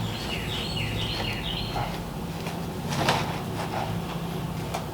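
A bird singing a quick run of short descending notes near the start, over a steady low hum, with a few brief scuffing knocks about three seconds in.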